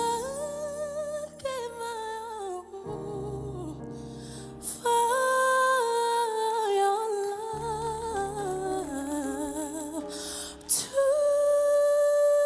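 A female solo singer's voice in slow, ornamented runs with vibrato over soft piano accompaniment. Near the end it settles into a long held note.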